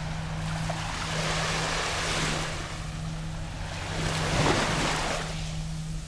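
Small waves lapping on a beach: two gentle swells of wash, about a second in and again near four seconds, the second a little louder. A steady low hum runs underneath.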